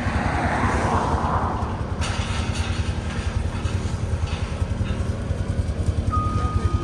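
Diesel engine of a tracked skid steer running steadily with a low, even rumble; near the end its reversing beeper starts beeping.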